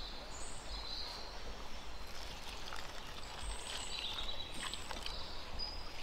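A thin stream of water trickling from a steel lota into a steel bowl of ground spice powder, soft and low, with a few faint high chirps.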